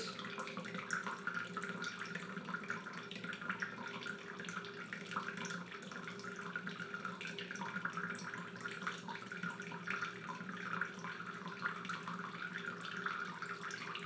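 A steady stream of filtered water running from a Sawyer Mini water filter into a plastic cup, a continuous splashing trickle during a flow-rate test.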